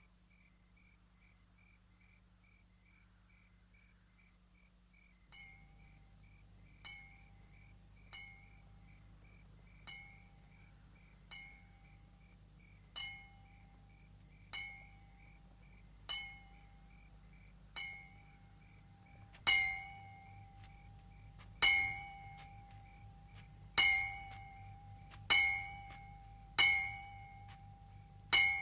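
A small metal bell struck again and again, each ring dying away before the next strike. It starts about five seconds in at about one strike every second and a half, and the strikes grow louder and a little more spaced from about nineteen seconds in.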